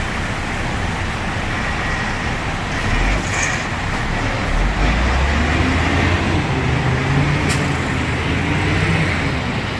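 A large wheel loader's diesel engine working as it tips a bucket of crushed rock into a dump truck and pulls away. The engine's note grows about three seconds in, rises, then settles back near the end, over a steady background noise.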